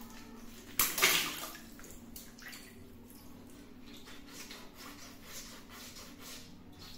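A water balloon bursts about a second in: a sharp pop and a splash of water that dies away within half a second. Faint drips follow.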